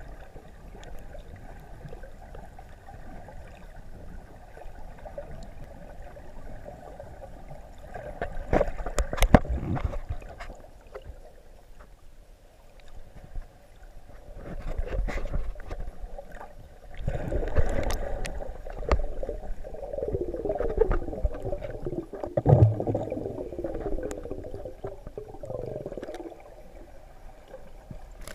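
Muffled underwater sound picked up by a camera held below the surface: water sloshing and gurgling around the housing, with scattered sharp clicks and knocks. The sound swells and fades several times.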